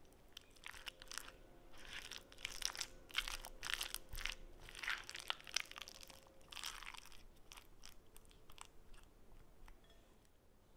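Spatula stirring cream cheese into diced peppers, cucumber and raisins in a glass bowl: wet, crunchy squishing and scraping, busiest in the first seven seconds and thinning out toward the end.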